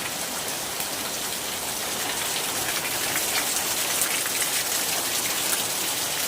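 Steady rain falling, with many small drop hits ticking through it, rain coming through where the roof is leaking; it grows a little louder about two seconds in.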